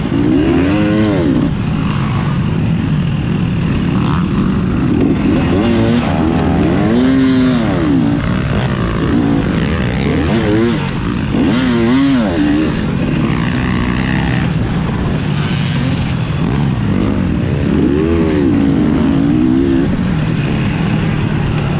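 Motocross dirt bike engine at racing speed, its pitch rising and falling again and again as the throttle is opened and shut over jumps and through gear changes, with a dense low rumble underneath.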